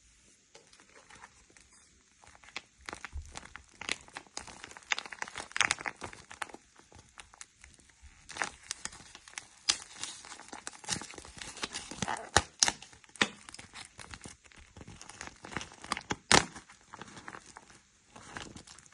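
Fingers squeezing and handling a squishy cat-paw toy, making irregular sticky crackles and clicks, with a few louder snaps in the second half.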